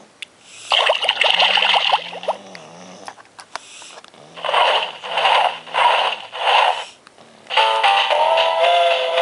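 Electronic sound effects and music from a children's interactive sound book's small speaker: a noisy effect about a second in, four short repeated bursts in the middle, then a short electronic tune starting near the end.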